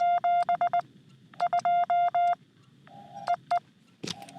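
Morse code (CW) from a Xiegu X6100 ham radio transceiver: short and long beeps at one steady pitch over receiver hiss, in two quick runs, then a fainter signal at the same pitch near the end, with a brief click just before the end.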